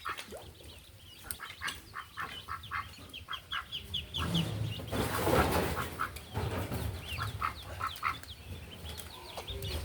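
Baby poultry peeping in many short, rapid high chirps, with a rustling burst about five seconds in.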